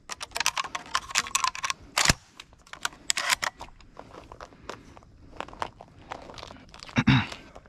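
Close crackling and crunching, like dry leaf litter and brush underfoot as someone shifts about. It is densest in the first few seconds, with a single sharp knock about two seconds in and a brief low sound near the end.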